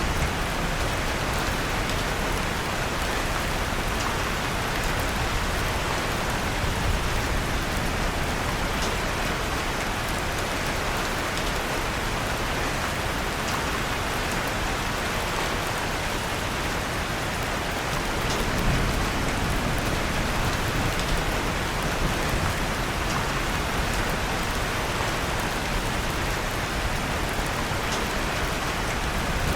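Steady rain falling without a break, mixed with occasional faint crackles of a wood fire burning in a fireplace.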